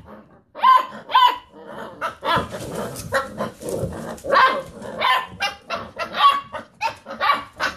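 Several basset hound puppies yipping and barking, a quick string of short, high calls: the puppy 'rooing' of young hounds at play.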